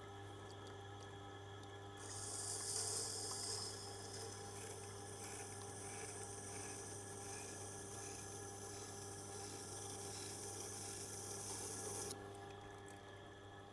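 Tormek wet grinder's motor humming steadily while the hard tool-steel blade of an oboe reed scraping tool is ground on the wet stone wheel, a steady hiss that starts about two seconds in and cuts off suddenly near the end.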